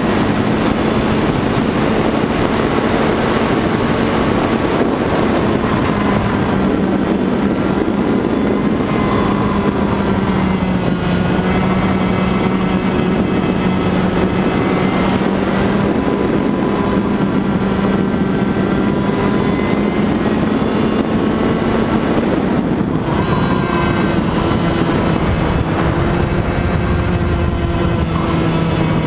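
Two-stroke racing kart engine at high revs, recorded from the onboard camera with wind rushing over the microphone. The engine note holds steady, with brief dips in pitch a few times.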